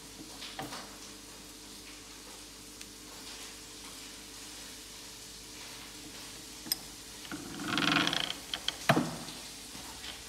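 Hand-operated bench press working a steel slug die: a faint steady hiss, then a scraping of metal on metal for about a second as the ram is brought down into the die, followed by several sharp metallic clicks.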